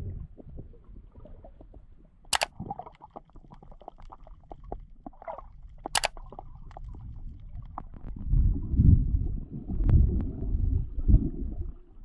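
Muffled underwater sound picked up by a waterproof GoPro action camera below the surface: a low rumble of moving water that swells louder about two-thirds of the way through, with scattered small clicks and two sharp cracks a few seconds apart.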